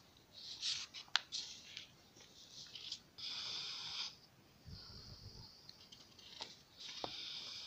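Sheets of paper rustling and crinkling as handheld cards are handled and swapped. There are sharp crackles about a second in and again near the end.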